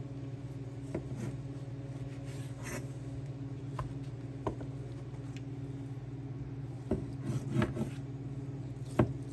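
Long knife slicing through a rack of smoked pork ribs on a wooden butcher-block board, with scattered knocks and scrapes of the blade and rib pieces on the wood. A steady low hum runs underneath.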